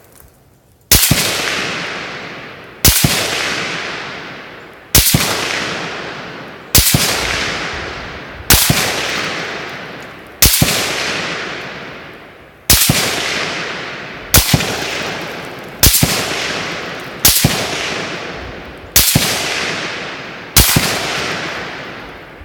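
Smith & Wesson M&P15 AR-15 rifle in 5.56 firing twelve single shots, one roughly every one and a half to two seconds, each crack followed by a long echo fading away.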